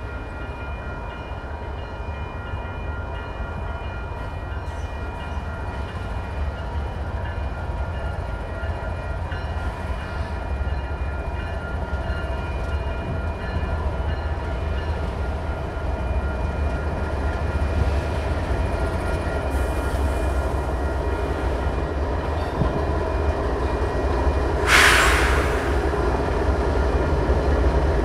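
Canadian Pacific GE ES44AC diesel locomotives approaching and rolling past at low speed, their engine rumble growing steadily louder, while a level-crossing bell rings steadily. A sharp burst of hiss lasting about half a second comes near the end.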